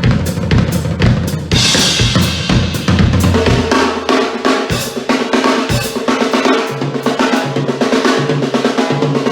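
Drum kit played loudly: rapid bass drum and snare strokes, a cymbal crash about a second and a half in, then the bass drum mostly drops out and steady ringing tones sound under lighter hits.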